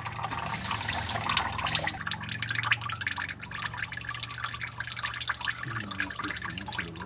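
Thin, watery engine oil, thinned by motor-flush solvent, pouring out of the oil pan and splashing and dripping into a drain pan, over a low steady hum.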